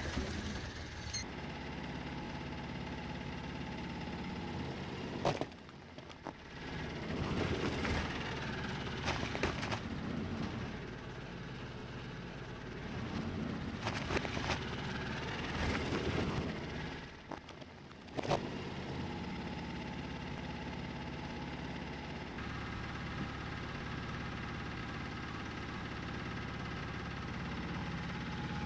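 Truck engine running steadily, its pitch rising and falling in the middle stretch as the truck rolls its tyre over objects. Near the middle, clay pottery cracks and crunches under the tyre with a few sharp clicks.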